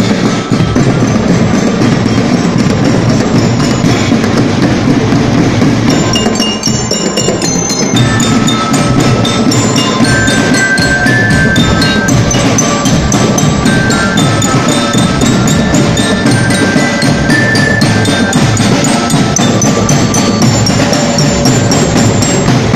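Marching drum corps playing: bass drums and snare drums keep a steady beat while a marching glockenspiel plays melody notes over them, the bell notes standing out more clearly from about six seconds in.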